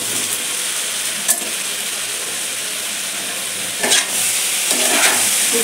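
Hot oil and masala sizzling steadily in a kadai as boiled green jackfruit pieces are tipped in and stirred with a spatula, with two sharp knocks of the spatula against the pan, one about a second in and one near four seconds.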